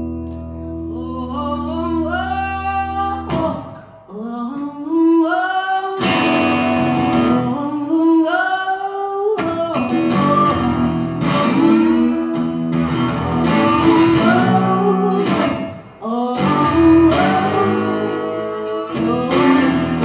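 Live rock music: a woman singing and playing a Flying V electric guitar. It opens on a held chord and then moves into bending notes and fuller playing.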